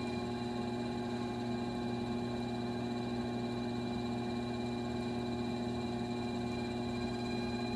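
Electric potter's wheel running at a steady speed, giving a constant motor hum made of several even tones.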